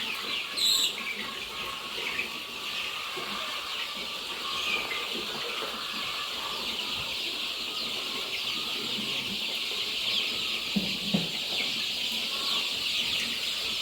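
A large flock of four-week-old chickens peeping constantly, many high cheeps overlapping. A brief sharp sound comes about a second in.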